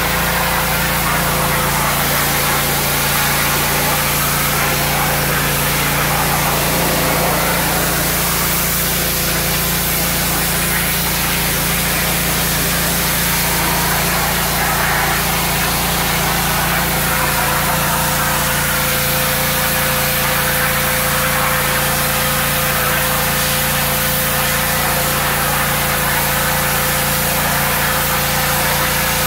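Pressure washer running steadily, the pump motor's hum under the hiss of the spray jet washing a tub of sea cucumbers.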